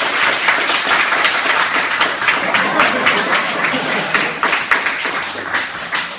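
Applause from a seated group: dense, steady hand clapping that thins a little toward the end.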